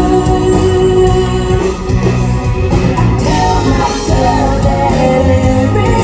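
Live country band playing a song at a sound check, a woman singing lead over guitars and drums.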